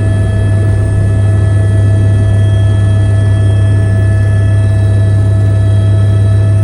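Helicopter in flight, running steadily: a loud, constant low drone with a steady whine above it.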